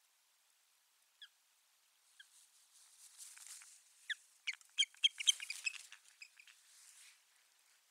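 Osprey alarm calling: a run of short, sharp, high chirping calls, a few at first and then densest from about four to six seconds in, over a hiss. These are the calls of a territorial dispute with intruding ospreys.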